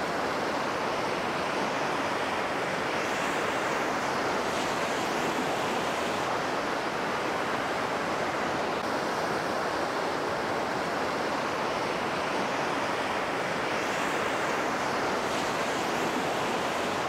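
A steady, even rushing noise with no pitch and no distinct events, holding the same level throughout.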